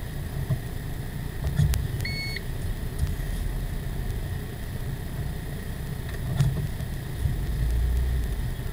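Low steady rumble of a car's engine and tyres, heard from inside the slowly moving car. A short electronic beep sounds about two seconds in, and two faint knocks come later.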